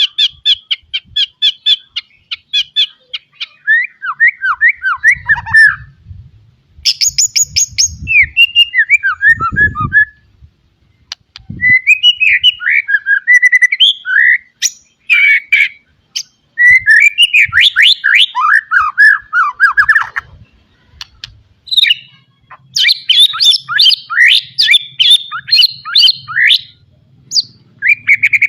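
White-rumped shama (murai batu) singing a long, varied song full of mimicked calls: rapid trills, fast repeated notes and down-slurred whistles in phrases broken by short pauses.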